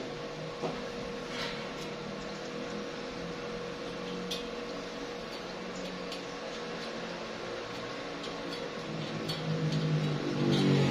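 A steady machine-like hum with a few faint clicks. Near the end a louder pitched hum swells up.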